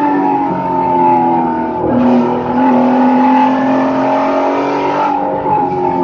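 Race car engine heard from inside the cockpit under hard acceleration, over road and wind noise. Its note drops at a gear change about two seconds in, then climbs slowly, and changes again near five seconds.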